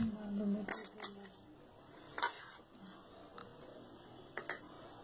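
A spoon clinking and scraping against a small steel bowl of pickle masala a few separate times, as the masala is scooped out to stuff slit green chillies.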